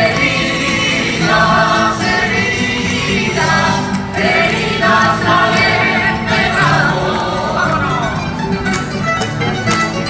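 Live traditional Spanish folk music: a group of voices singing phrases over plucked guitars, with sharp clicking near the end.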